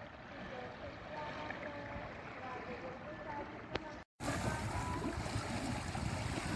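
Wind and sea noise on a small open fishing boat, a steady rumbling hiss. It cuts out for a moment about four seconds in, then comes back louder.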